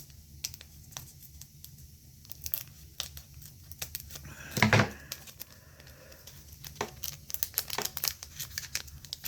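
Foil booster pack wrapper crinkling and being torn open, in many small irregular crackles, with one louder rustle about halfway through.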